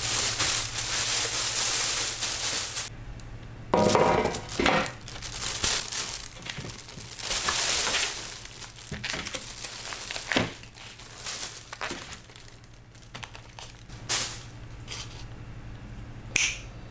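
Plastic bags and newspaper wrapping crinkling and rustling as sealed bags of aquatic plants are unpacked by hand. Near the end come a few short, light knocks as the bags are set down on a metal tray.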